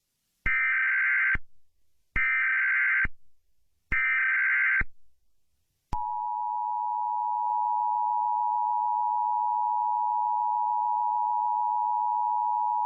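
Emergency Alert System alert opening: three short buzzing bursts of SAME header data, each just under a second long. About six seconds in comes the steady two-tone EAS attention signal, which holds to the end.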